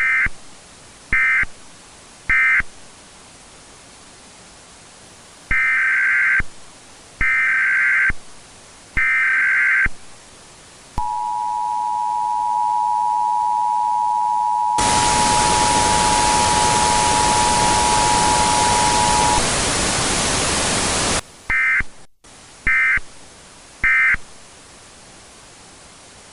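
Emergency Alert System tones. Three short data bursts are followed by three longer bursts of screeching SAME header data, then the two-tone attention signal held for about eight seconds. Partway through the attention signal a loud burst of static cuts in and runs on a couple of seconds after it stops. The sequence ends with three short end-of-message data bursts over a steady hiss.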